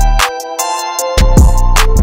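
Hip hop music with deep bass kicks and hi-hats; the bass drops out about a quarter second in and comes back a second later.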